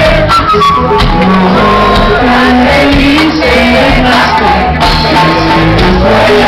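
Live reggae band playing through a PA in a large hall, with electric bass, guitar and drums, and voices singing and shouting along.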